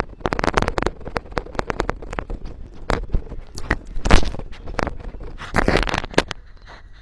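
Tasmanian devil sniffing at, licking and biting a small handheld microphone held right to its nose: close, loud snuffling and a rapid crackle of clicks, loudest about four seconds in and again a little later.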